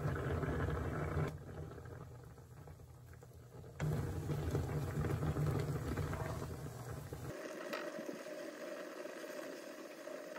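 Tteokbokki sauce with rice cakes and fish cakes simmering and bubbling in a frying pan, a metal ladle stirring through it. The low bubbling drops away suddenly about a second in, comes back loud near four seconds, and gives way to a quieter hiss about seven seconds in.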